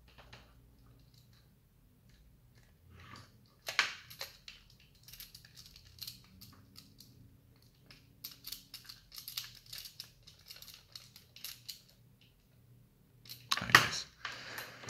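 Small screwdriver turning a tiny M2 screw into a plastic electronics housing, with scattered clicks and scrapes of the tool and parts being handled. A sharp knock comes about four seconds in, a run of quick small clicks follows in the middle, and a louder burst of handling noise comes near the end.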